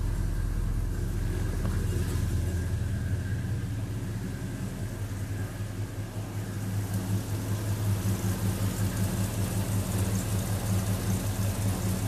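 1969 Dodge Super Bee's big-block V8 idling steadily. From about halfway through, the idle grows louder and lumpier with a rhythmic pulse as the air-conditioning compressor comes on and loads the engine.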